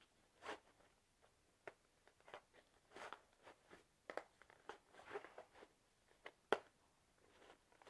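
Faint rustling and scraping of nylon stroller-seat fabric against a plastic seat board as the board is pushed into the seat's back pocket, with a sharp click about six and a half seconds in.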